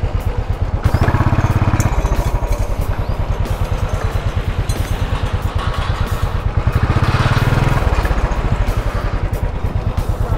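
Motorcycle engine running with an even, pulsing beat, growing louder briefly about a second in and again around seven seconds in.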